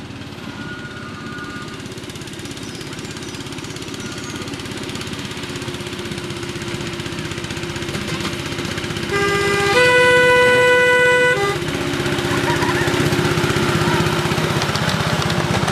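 Miniature railway locomotive approaching with its passenger train, its running noise growing louder, then sounding its horn in one steady blast of about two seconds, a little past halfway through.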